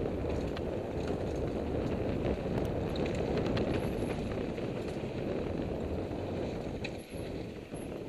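Mountain bike riding down a dirt singletrack, heard from a helmet-mounted camera: a steady rumble of tyres on dirt and wind on the microphone, with scattered small clicks and rattles from the bike and trail. The rumble drops briefly about seven seconds in.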